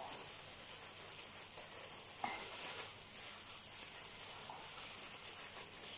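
Faint rustling of a plastic bag as raw chicken thighs are kneaded in an olive-oil and spice marinade inside it, with one small click a little over two seconds in.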